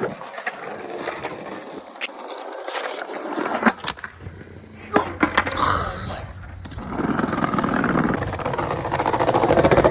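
Skateboard wheels rolling, with several sharp clacks of the board striking the ground through the middle. The rolling gets louder near the end.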